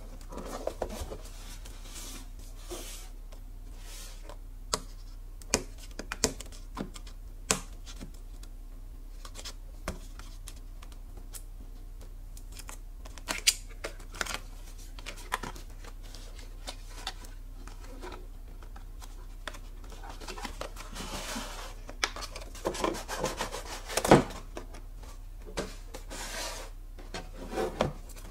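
Hands handling a cardboard product box: scattered taps and clicks of fingers on the cardboard, and stretches of cardboard sliding and rubbing as a white inner box is slid out of its printed outer sleeve. One sharp knock about two-thirds of the way through is the loudest sound.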